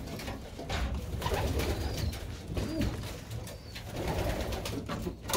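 Domestic pigeons cooing in a small loft, with scattered light clicks.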